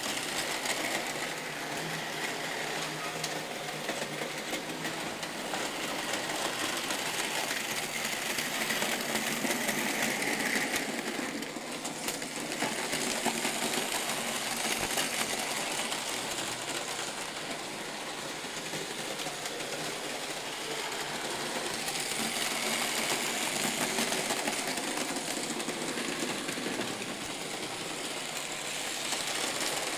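Märklin model trains running on the layout: a steady small-motor whir with wheels rattling on the track, getting louder and quieter by turns.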